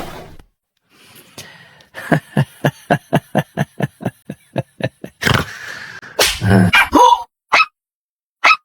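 Dog sounds used as a comic sound effect: a quick run of short, evenly spaced yips, about five a second, then a few louder barks and whimpers.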